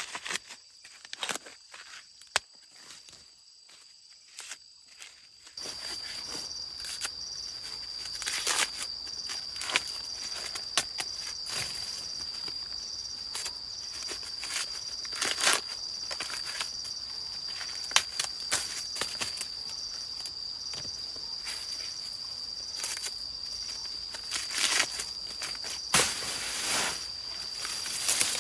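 Dry rustling and crackling with scattered sharp snaps and clicks. From about five seconds in, insects trill steadily on one high note.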